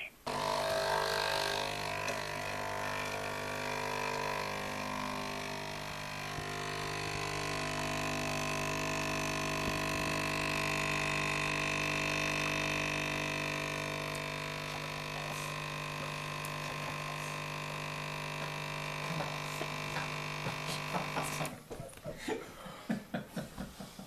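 Nespresso capsule machine's pump buzzing steadily as it brews espresso, cutting off abruptly about two and a half seconds before the end, followed by a few faint clicks.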